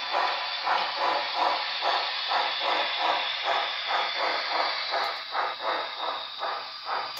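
Sound-equipped model PRR L1 2-8-2 steam locomotive playing its exhaust chuff as it pulls a train at low speed: an even beat of about three chuffs a second over a constant hiss, from a small onboard speaker.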